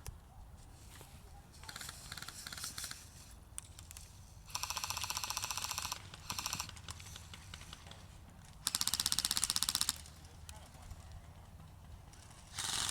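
Airsoft guns firing on full auto: several bursts of rapid, evenly spaced shots. The longest lasts about a second and a half, the loudest comes a little past the middle, and another burst starts right at the end.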